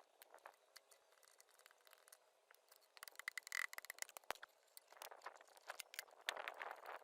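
Faint, scattered clicks and light scraping of hand tools working on the small metal parts of an old sewing machine, with a short hiss about three and a half seconds in.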